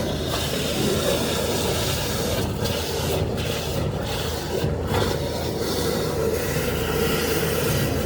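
Drain water jetter running steadily: its engine-driven high-pressure pump makes a low drone with a hiss over it while the hose jets the storm water drain.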